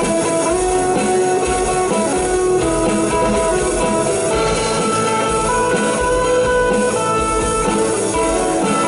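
Live rock band playing an instrumental passage without singing: distorted electric guitars holding and changing notes over a drum kit, amplified through a PA.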